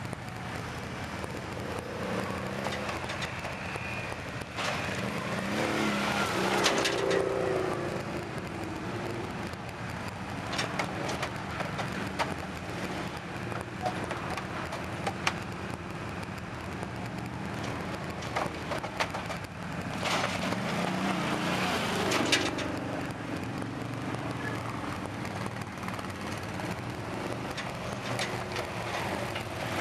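Quad bikes (ATVs) riding past one after another, their engines revving up and easing off. The loudest passes come about six seconds in and again around twenty seconds in.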